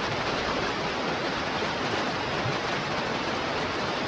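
Fast river rapids rushing, a steady full water noise.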